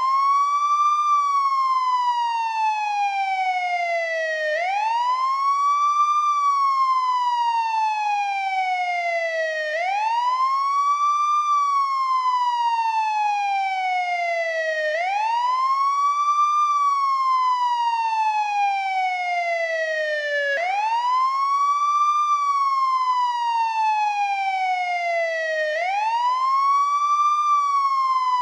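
American police siren sounding its wail tone: each cycle climbs quickly in pitch, then slides slowly down for several seconds, repeating about once every five seconds.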